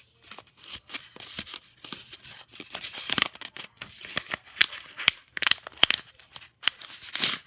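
Paper crinkling and tearing as a homemade paper package is opened by hand: irregular sharp crackles, with a longer, louder tear near the end.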